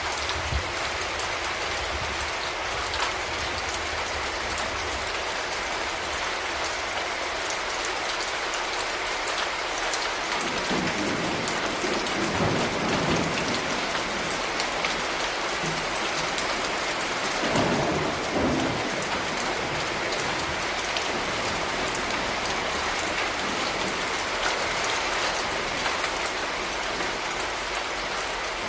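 Steady rain falling on hard surfaces, with two low rumbles: one starting about ten seconds in and lasting a few seconds, another briefer one about eighteen seconds in.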